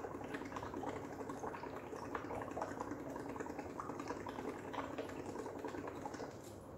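Breath blown through a drinking straw into a plastic cup of tap water with pH indicator drops, a steady rapid crackle of bubbling. The blowing is turning the water acidic.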